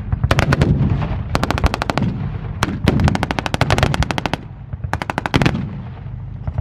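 Heavy machine gun firing blanks in several short bursts of rapid shots, about ten a second, from the turret-mounted .50-calibre Browning on an M4 Sherman tank. Under it runs the steady low hum of the tank's engine.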